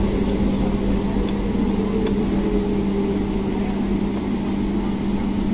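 Steady hum inside a parked Boeing 757-200's cabin: the aircraft's air-conditioning running on ground power after the engines are shut down, with one strong low tone held steady throughout.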